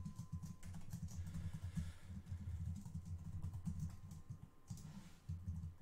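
Typing on a computer keyboard: a fast, irregular run of keystrokes.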